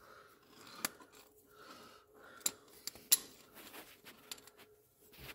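Wrench clinking on a bolt and the steel mower deck: a few sharp metallic clicks with faint scraping between them.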